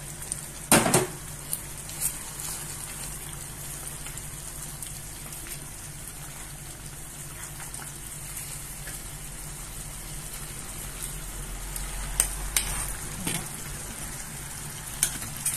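Chicken and sauce sizzling gently in a clay tagine over a gas flame, with a loud spoon knock on the dish about a second in and a few lighter clicks later. Near the end, prunes and raisins bubble in caramelising sugar syrup.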